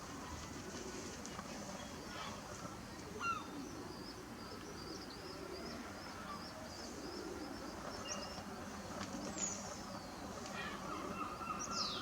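Outdoor nature ambience of birds singing and calling: many quick high chirps, with a few downward-sweeping whistles. Geese start honking near the end.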